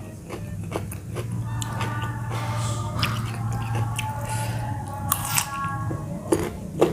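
A person chewing and biting food close to the microphone, with a run of crisp crunching clicks, the loudest about five seconds in and again near the end.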